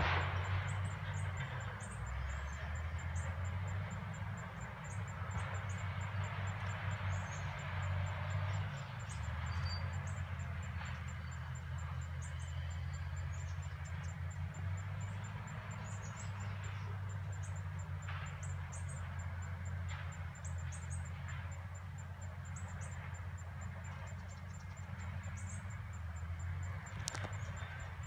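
Bulldozers' diesel engines running: a steady low drone that swells and eases, with short sharp sounds now and then.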